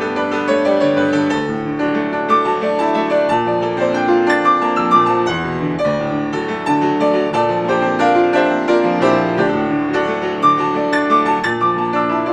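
Grand piano played solo, a continuous stream of many notes, with chords and a melody in the middle register.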